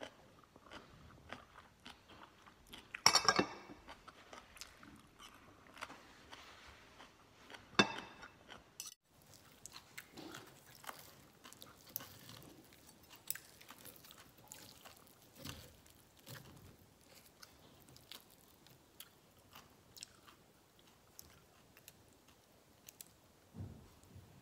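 Close-up chewing and crunching of food with light clicks of cutlery. After about nine seconds come the clicks and scrapes of a spoon and fork against a metal plate.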